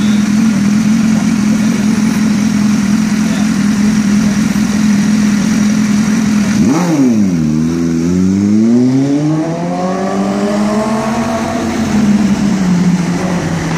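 A steady engine hum, then about seven seconds in a sharp rev blip from a BMW S1000RR superbike's inline-four engine. Its note then rises steadily as the bike pulls away and accelerates, levelling off near the end.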